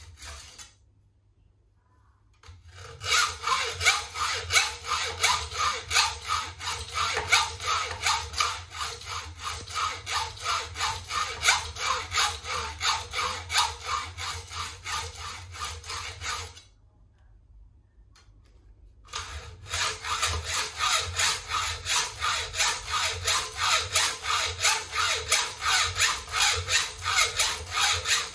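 Hand hacksaw cutting a brass strip clamped in a bench vise, in quick, even back-and-forth strokes. The sawing starts a couple of seconds in, stops for a couple of seconds past the middle, then carries on.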